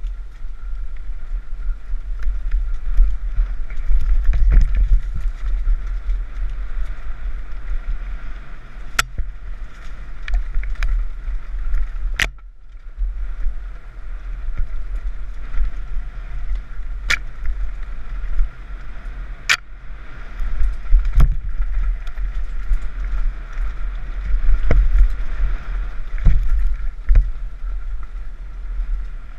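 Mountain bike descending a rough trail, heard through an on-board action camera: a constant rumble of wind and trail vibration with rattling, broken by a few sharp clacks and a brief lull about halfway.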